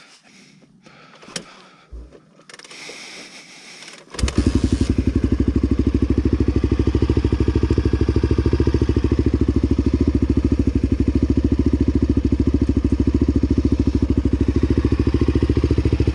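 Honda dual-sport motorcycle engine starting about four seconds in and settling straight into a steady, even idle. A few soft clicks and handling noises come before it.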